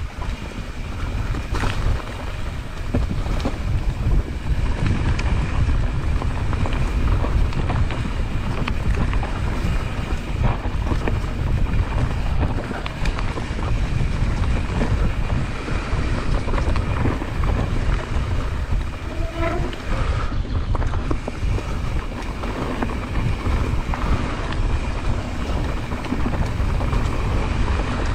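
Wind buffeting the microphone over the rattle and rumble of a mountain bike descending a dirt and leaf-litter trail, with many small clicks and knocks as the bike runs over bumps.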